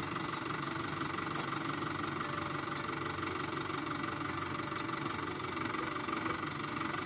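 Crane truck's diesel engine running steadily at idle, powering the truck-mounted hydraulic crane that holds a concrete utility pole.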